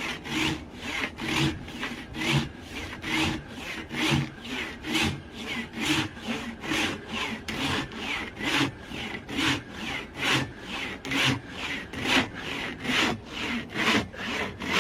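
Large folding hand saw with big teeth rasping through a wooden log in quick, even back-and-forth strokes, about two a second, stopping near the end.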